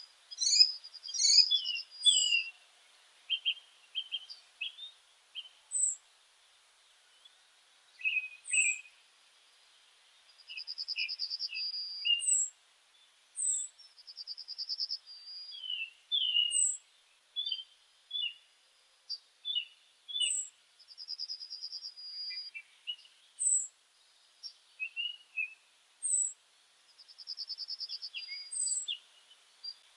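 Birds chirping: a steady run of short, high chirps every second or two, mixed with lower chirps and four rapid trills of about a second each.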